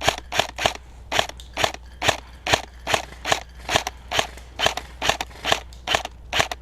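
Footsteps crunching on the forest floor at a brisk, steady pace, about two and a half steps a second.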